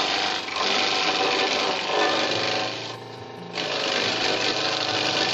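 Grass chopper (chaff cutter) running with Napier grass stalks being fed in, its blades chopping them with a dense, loud chopping noise over the machine's hum. The chopping eases briefly about three seconds in and then resumes.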